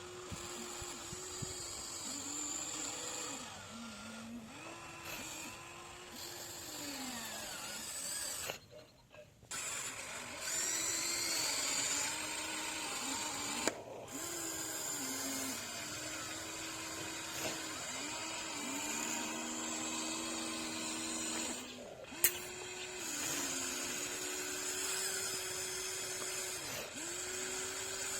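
Huina 1593 RC excavator's electric motors whining as the arm, bucket and cab move, starting and stopping over and over with the pitch gliding up and down. There is a short pause about 9 s in and a sharp click about 22 s in.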